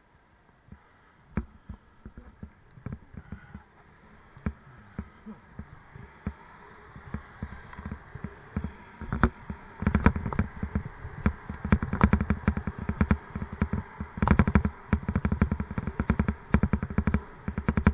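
A Raleigh Mustang Elite bicycle and its mounted camera rattling and knocking over a rough road surface, picked up through the mount. It is quiet at first, then the knocks come faster and louder as the bike gets going, over a rising hiss of wind and tyre noise.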